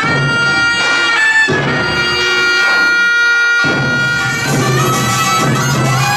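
Korean pungmul folk music: a taepyeongso (double-reed shawm) plays long held, bending notes over a steady beat of percussion.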